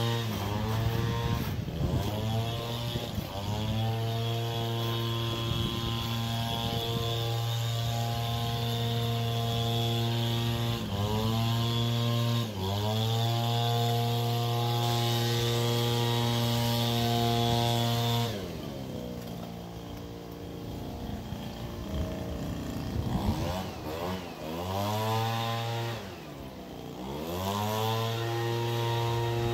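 A small engine running at a steady speed, its pitch dipping briefly and recovering several times. About eighteen seconds in it drops to a lower, uneven speed, rises and falls a few times, then picks back up to its earlier steady pitch near the end.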